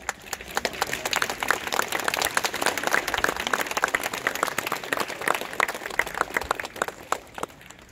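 Crowd applauding: dense hand clapping that starts abruptly and dies away near the end.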